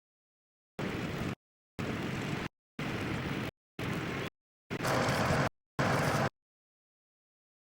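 Tractor engine running in the field, heard only in six short snatches of about half a second each, the sound cutting out to dead silence between them and for the last second or so: dropouts from a faulty tape transfer.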